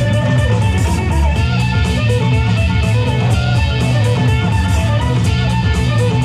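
Loud DJ-played music with a steady beat.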